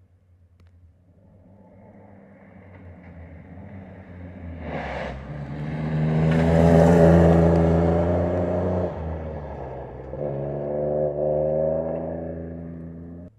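Rally car engine coming up from a distance and passing, loudest about seven seconds in, then falling away, with a second burst of revs near the end.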